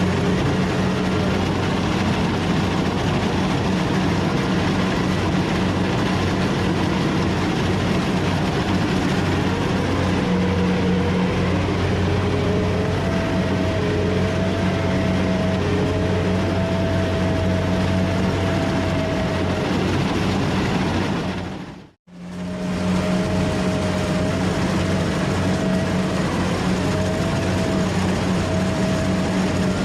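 Rice combine harvester running steadily: a deep engine hum with a higher whine that wavers in pitch. The sound drops out for a moment about two-thirds of the way through, then resumes.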